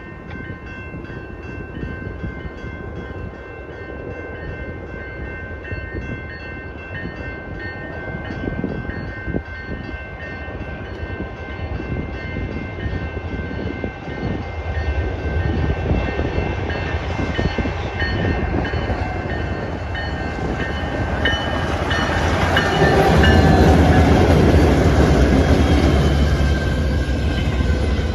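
CN freight train L559 rolling past, the cars clicking rhythmically over the rails, with steady high ringing tones throughout. The train grows louder and heavier near the end.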